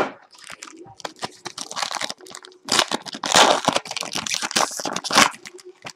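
Foil trading-card pack wrapper crinkling as it is handled and torn open, the crackling loudest for a couple of seconds past the middle.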